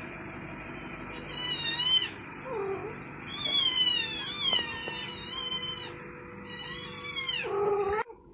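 Kittens mewing over and over in high, thin cries, in three bursts, with a couple of deeper meows from a grown cat mixed in, the last one near the end. A faint steady hum sits underneath.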